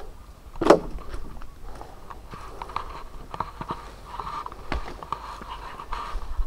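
Footsteps crunching through dry leaf litter and twigs, a string of crisp irregular crackles, with one louder crunch about a second in.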